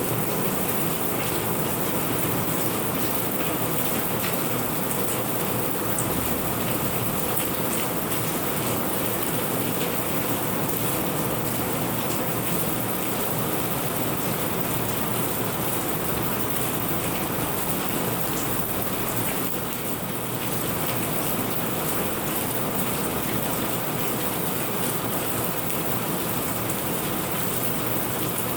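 Steady heavy rain falling, an even hiss with individual drops ticking through it; it eases slightly for a moment about two-thirds of the way in.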